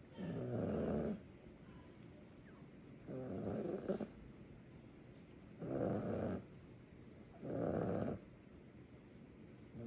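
A small dog, a Yorkshire terrier, snoring in its sleep: four snores, each under a second long, about two seconds apart, with another beginning right at the end.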